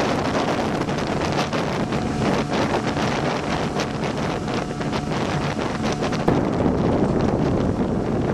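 Small aluminium boat running fast under an outboard motor, with strong wind on the microphone and water rushing past the hull.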